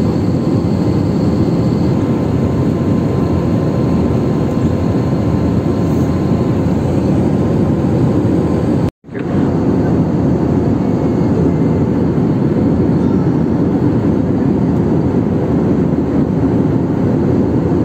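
Jet airliner cabin noise at cruise: the turbofan engines and rushing airflow make a steady, loud, low rush as heard from a window seat beside the engine. The sound cuts out for an instant about nine seconds in.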